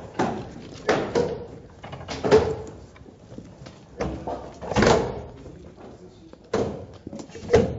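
Steel rebar being laid into and snapped into the plastic rebar clips of expanded-polystyrene ICF blocks: about half a dozen irregular knocks and clacks.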